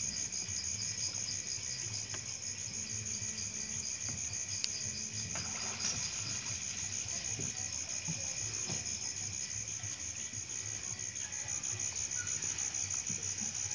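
A steady chorus of crickets trilling, with a few faint clicks of hands handling bait and hook.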